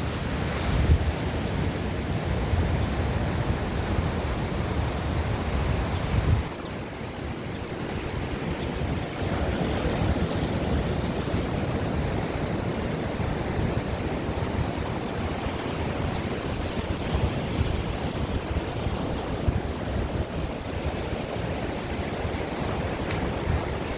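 Sea surf washing on the shore, with wind rumbling on the microphone that eases off about six seconds in.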